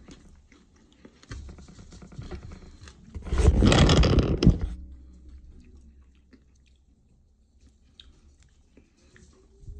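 A person chewing and biting into barbecue chicken close to the microphone, with small crackly clicks. About three seconds in comes a loud rubbing rustle lasting over a second as the phone is moved, then only faint ticks of fingers pulling meat from the bone.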